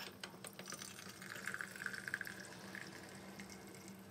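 Faint sound of liquid being poured, with many small clicks throughout.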